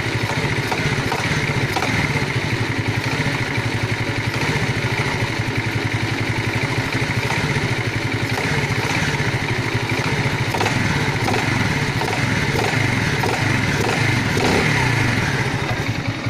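Alfa moped engine running steadily with a rapid even beat and faint sharp ticks, a knock in the engine that the owner is asking for help with.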